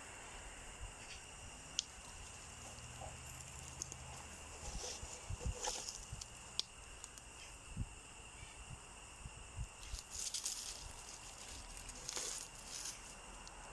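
Faint outdoor ambience with scattered light clicks and rustles, and a faint steady high tone.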